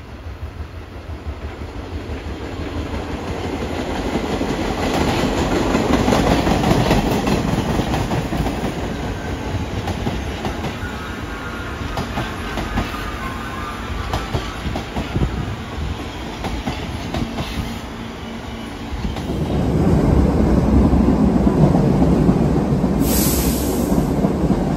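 Vintage New York subway train running on the rails, wheels clattering over the rail joints. The rumble builds over the first several seconds, eases off, then swells again in the last few seconds, with a brief high hiss near the end.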